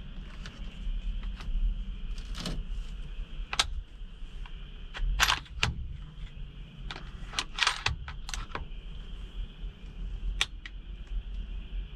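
A steady, high night insect chorus, with about a dozen sharp, irregular clicks and rattles close by. The loudest clicks come about five seconds and seven and a half seconds in.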